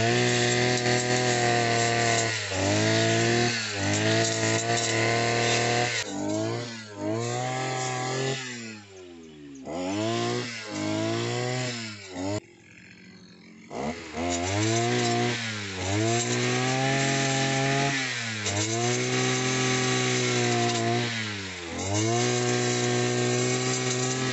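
Petrol brushcutter cutting weeds and grass, its engine revving up and dropping back over and over as the throttle is squeezed and released. About halfway through it falls to a low idle for a second or so, then revs up again.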